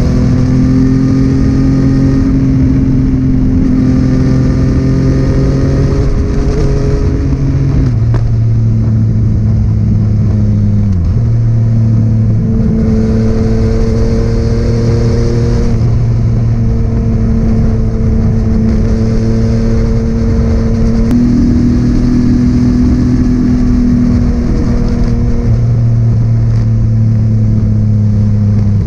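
Yamaha MT-09 inline-three engine running through a Scorpion full-system exhaust at steady cruising revs. The note holds for a few seconds at a time, then steps up or down in pitch several times, with a quick dip about eleven seconds in. Wind hiss runs underneath.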